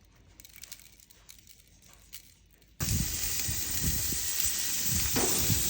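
Faint crackling, then about three seconds in a loud hissing sizzle starts abruptly and keeps going: meat hitting a hot barbecue grill and searing.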